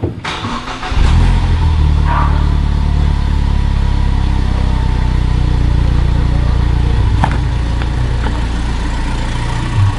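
Car engine starting about a second in, then running steadily at low speed as the car rolls slowly forward.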